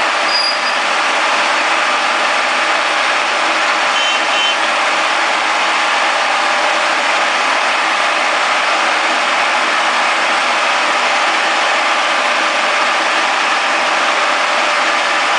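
Conventional milling machine running with a steady, even mechanical whir, as set up for friction stir welding of aluminium.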